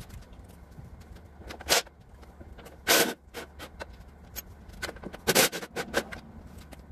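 Irregular sharp clanks and rattles of hand work on the van's rusty front-end sheet metal around the headlight and grille, with three louder knocks about a second and a half, three seconds and five and a half seconds in.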